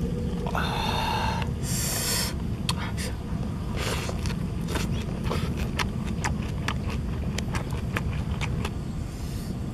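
Raw lettuce leaves crunched while being eaten, heard as a run of sharp, irregular crackles for several seconds after a couple of short noisy sounds at the start, over a steady low rumble.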